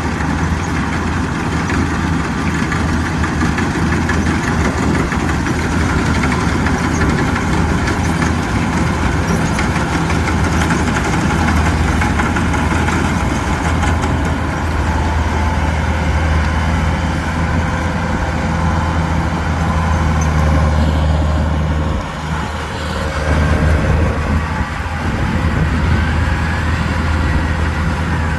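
Kubota combine harvester's diesel engine running steadily with a low hum, dipping briefly about three-quarters of the way through.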